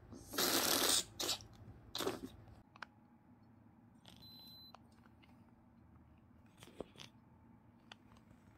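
Nasal aspirator sucking mucus from a congested baby's nose: wet, crackling suction noise in three bursts, the first nearly a second long, all within the first two and a half seconds. About four seconds in, an ear thermometer gives a short electronic beep, and a couple of light clicks follow near seven seconds.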